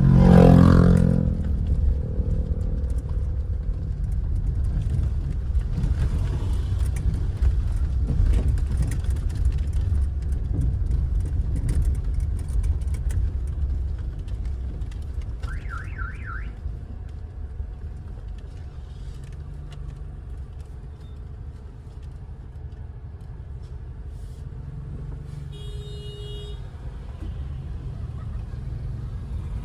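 Car engine and road rumble heard from inside a moving car, steady and low. Two short high beeps sound, one about halfway through and one near the end.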